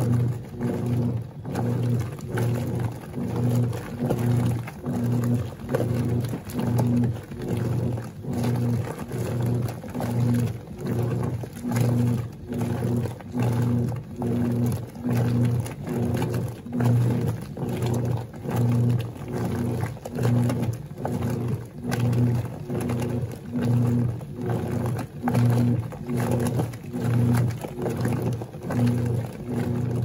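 Wanke Sally 5 kg semi-automatic washing machine agitating a load in soapy water on its heavy wash setting. The motor hum and the churning water swell and dip in an even rhythm, a little more than once a second, as the agitator swings back and forth.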